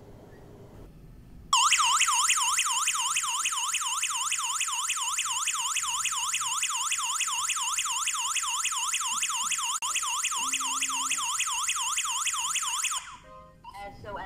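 PG103 alarm system siren sounding a fast up-and-down warble for a panic alarm. It starts suddenly about a second and a half in and cuts off abruptly about a second before the end.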